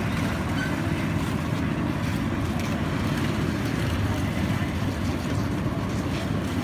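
Steady low rumble of motor traffic and engines running.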